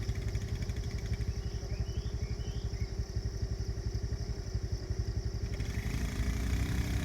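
Small single-cylinder motorbike engine running with a fast, even beat; about six seconds in the sound grows fuller and slightly louder.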